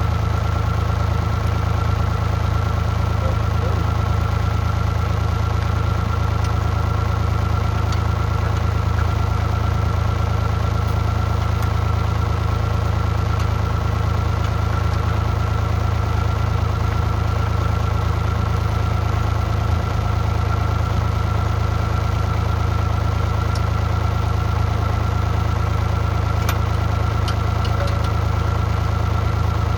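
Mini excavator's diesel engine idling steadily, with a few faint clicks over it.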